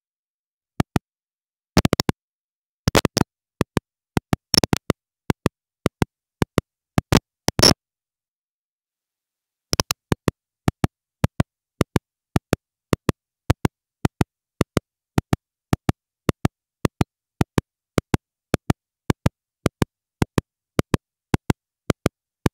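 A faulty, glitching microphone: sharp clicks and pops with the audio dropping to dead silence between them. Clusters of clicks come in the first eight seconds, then nothing for about two seconds, then clicks at a fairly even two to three a second.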